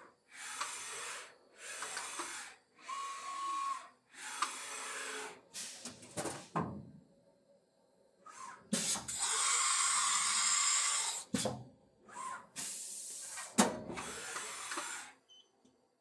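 TRAK 2op CNC mill's axis drives running a tool change: a series of short rapid moves with brief pauses and a short whine, sharp clunks as the tool is released and clamped, and a loud hiss lasting about two seconds near the middle.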